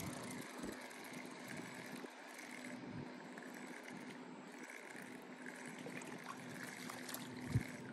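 Faint steady background noise with a low steady hum, a few faint ticks and one soft knock near the end.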